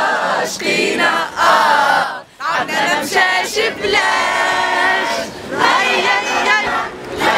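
A group of young men and women cheering and shouting together, with a long note held in chorus about four seconds in and a brief break just after two seconds.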